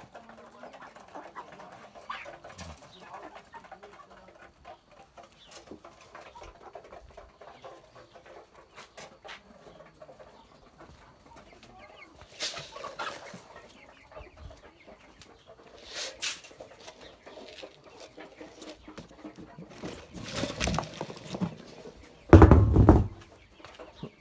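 Domestic chickens clucking softly while they feed, with several brief noises in the second half and a loud, heavy thump near the end.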